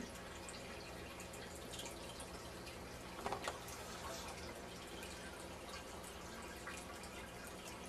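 A dog gnawing on a rawhide chew stick: faint, irregular little clicks over a steady low hum, with a brief louder noise about three seconds in.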